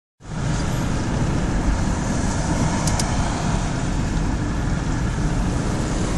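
Car driving on a wet road, heard inside the cabin: a steady low rumble of road and tyre noise with engine drone.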